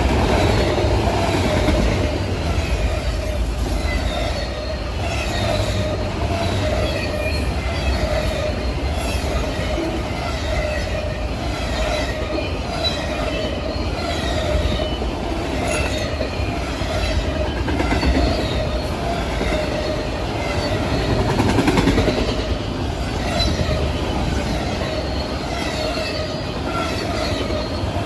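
A train's cars rolling past steadily: a continuous rumble of wheels on the rails, with a wavering squeal from the wheels running underneath it.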